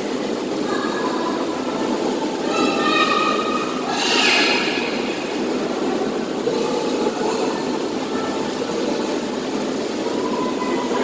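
Steady, echoing noise of an indoor pool room, with water sloshing as a child paddles on a foam pool noodle. A brief voice comes near three seconds in, and a louder splash follows about a second later.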